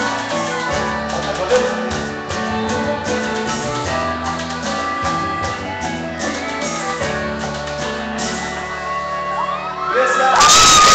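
Live band music: accordion melody with keyboard bass and percussion, the bass stepping through notes every half second or so. A louder shout-like voice comes in near the end.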